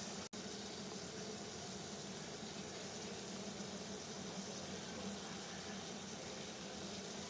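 Water boiling steadily, with a brief split-second dropout in the sound just after the start.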